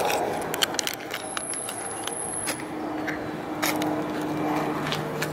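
A diesel truck engine running steadily, a low hum that sets in about halfway through, over outdoor background noise with scattered clicks and ticks.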